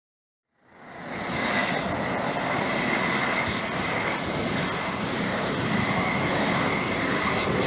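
Steady roar of a 2-million-BTU-per-hour propane flame-weeding torch burning at full output, a loud even rush with a thin steady whistle in it; it fades in about a second in.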